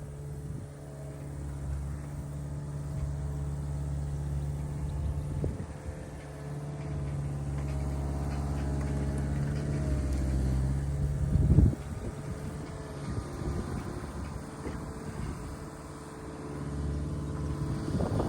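Skid steer engine running steadily, its pitch wavering for a few seconds in the middle, with one sharp knock about eleven and a half seconds in.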